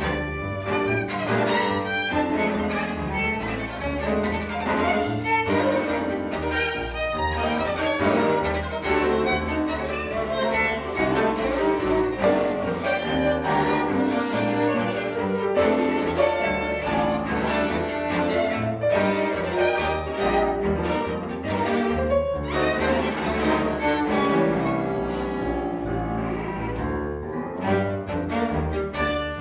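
Live chamber music with violin and cello playing a busy, continuous passage, thinning briefly near the end.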